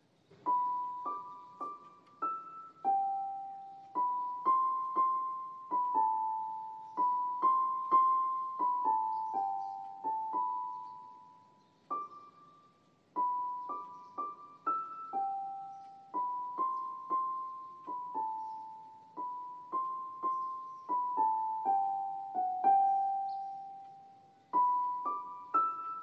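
Background music: a slow, simple melody of single notes on a piano-like keyboard, each note struck and left to fade, with a couple of short pauses.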